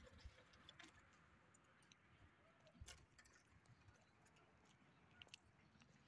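Near silence: faint background with a few scattered soft clicks.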